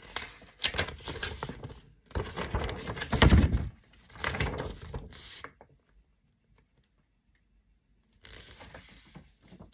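Folded paper poster being unfolded and handled: paper rustling and crinkling with knocks, the heaviest a thump about three seconds in. Near the end it goes almost silent for a couple of seconds before a fainter rustle.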